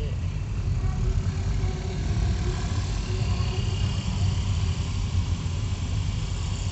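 Car moving through city streets, heard from inside the cabin: a steady low engine and road rumble.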